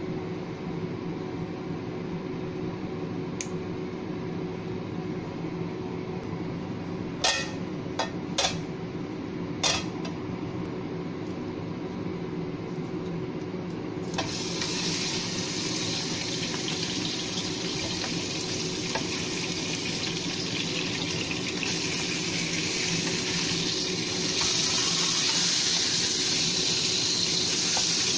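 A salted fish tail laid into hot oil in a frying pan starts sizzling about halfway through, for half-frying; the hiss grows louder near the end. Before that there is a low steady hum with a few sharp knocks.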